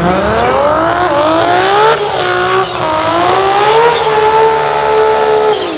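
Toyota 2JZ inline-six in a Datsun coupe drag car doing a burnout: the engine revs up steeply, wavers, then holds high revs with the rear tyres spinning, and drops off the throttle just before the end.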